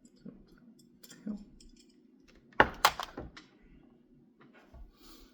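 Handling noise from cords and small tools on a work surface: a few light clicks, then a cluster of sharp knocks and clatters about two and a half to three seconds in, over a faint steady hum.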